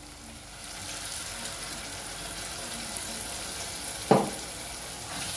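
Blended tomatoes poured into a hot pot of browned beef and onions, the pan sizzling steadily. A single short knock about four seconds in.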